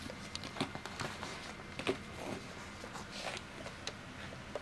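Dog rain apron of waterproof fabric rustling as it is handled, flipped over and laid on a wooden floor, with scattered light clicks and taps.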